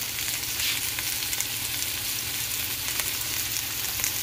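Seasoned chicken breast fillets frying in a nonstick skillet, a steady sizzle with faint crackles. Spaghetti is stirred in a pot of boiling water alongside.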